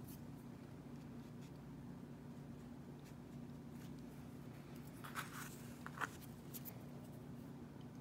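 Quiet handling sounds of painting a rock: faint scratching of a paintbrush and two small clicks a little past the middle, over a steady low hum.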